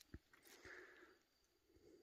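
Near silence: faint outdoor quiet with a few soft clicks and a light rustle in the first second, and a faint thin high tone from about the middle on.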